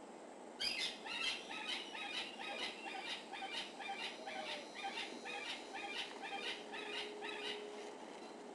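Pygmy marmoset giving a long run of short, high-pitched calls, about three a second, that start just over half a second in and stop shortly before the end.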